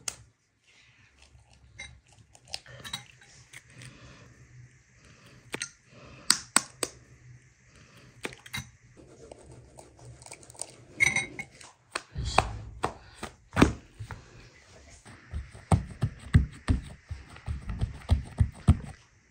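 Kitchen handling sounds: sharp clicks and taps as eggs are cracked and worked with a fork in a glass bowl, then in the second half a run of dull thumps as hands press and pat dough flat in a baking pan.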